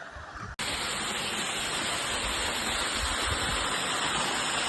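A waterfall rushing with a steady, even roar of falling water that starts abruptly about half a second in, after a short quieter stretch.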